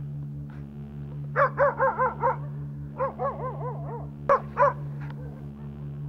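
Dogs barking in quick runs: about five barks, a short pause, about five more, then two, over a steady low hum.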